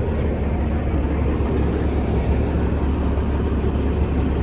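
Steady low rumble of an idling diesel truck engine, unchanging throughout.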